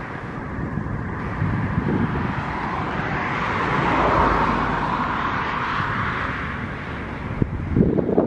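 A vehicle passing by, its noise swelling to a peak about halfway through and then fading, over low wind rumble on the microphone. A brief gust of wind noise comes near the end.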